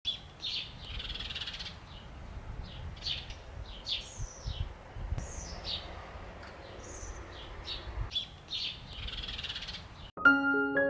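Birds chirping and singing: clusters of short high calls, several sweeping down in pitch, over a faint low rumble. Music cuts in suddenly near the end.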